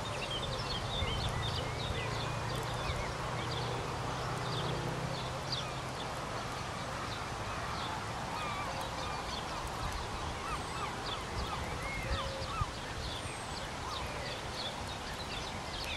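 Wild birds chirping and calling over steady outdoor background noise, with many short, repeated high calls. A low steady hum underlies the first six seconds or so.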